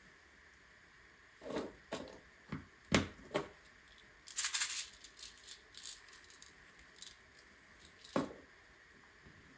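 LEGO pieces being handled and pressed together: a few sharp plastic clicks and knocks, a short scraping rattle about halfway with small ticks after it, and one more click near the end.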